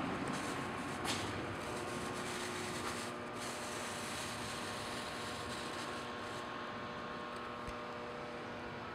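Dayton 36-inch air cannon fan (model 2ATC8, three-phase motor, four-blade cast aluminium propeller) with its rush of air fading over the first few seconds as it coasts down, then a faint steady hum.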